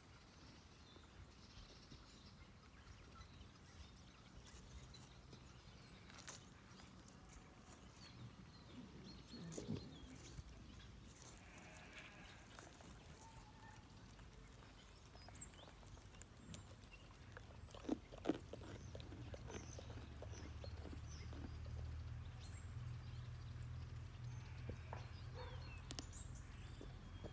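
Mouflon ram feeding on acorns on the ground: faint scattered crunching and clicking of the nuts, with two sharp cracks a little after the middle. A low steady hum sets in during the second half.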